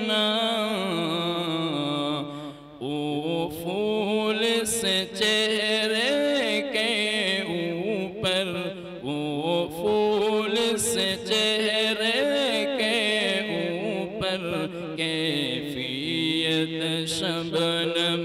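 A solo voice reciting a naat in long, drawn-out sung lines, the pitch wavering and ornamented; a brief pause for breath about two and a half seconds in.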